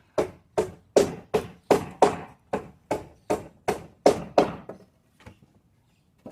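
Rapid, even strikes on wood, about three a second, a dozen or so in a row that stop after nearly five seconds, followed by a few fainter knocks.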